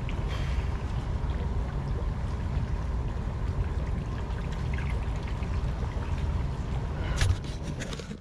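Water lapping and trickling against a small boat's hull, under a steady rumble of wind on the microphone. A few sharp knocks come near the end.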